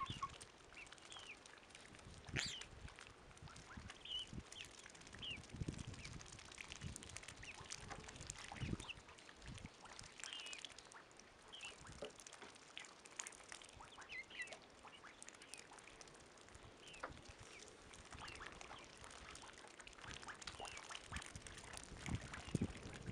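Ducks, goslings and chickens drinking and dabbling in a shallow muddy puddle: bills splashing and slurping in the water, with scattered short, high peeps.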